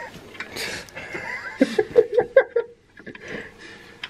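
A man laughing: breathy at first, then a quick run of about six short 'ha' pulses about a second and a half in, stopping after about a second.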